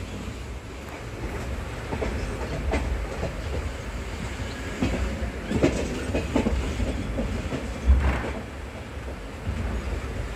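Passenger train running on the rails: a steady low rumble with scattered clacks of wheels over rail joints, and a heavier thump near the end.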